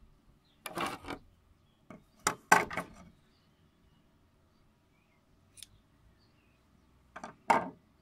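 Scissors handled on a wooden table and snipping through yarn: a few short clatters and snips, the loudest about two and a half seconds in and another near the end.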